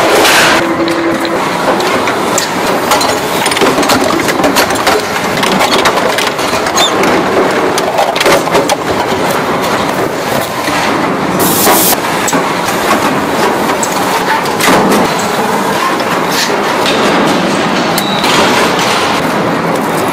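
Factory machinery noise in a tinplate can works: a continuous clatter and rattle of metal with many sharp clicks and knocks.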